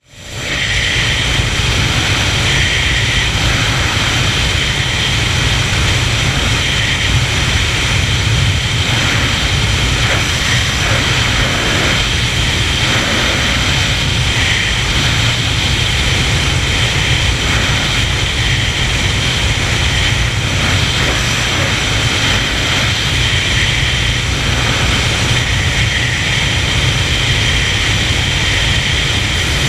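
Steady rush of wind and road noise at highway speed, with wind buffeting the microphone in a heavy low rumble and a faint steady high whine above it.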